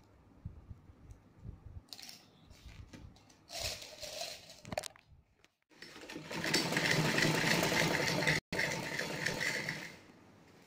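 Domestic sewing machine stitching a blue fabric strip, running steadily for about four seconds with an instant's break halfway through. Before it come a few short handling noises as the fabric is set in place.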